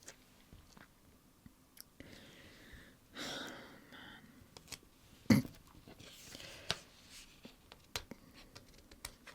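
Close-miked hands handling stickers and a sticker book: small sticky clicks and soft papery rustles, with one sharper tap a little past halfway.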